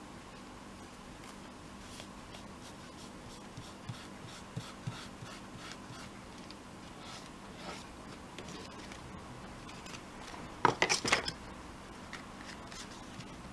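Fingers rubbing and pressing a glued strip of paper down onto a card tag: a run of faint, short rubbing strokes, then a brief louder crackle of paper being handled near the end.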